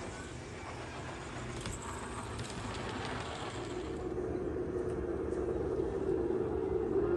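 Bachmann F-scale three-truck Shay model locomotive running, growing steadily louder as it approaches. A steady tone comes in near the end.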